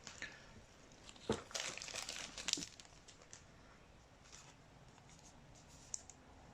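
A trading card pack's wrapper torn open and crinkled, starting with a click about a second in and crackling for about a second, with a few faint ticks of handling afterwards.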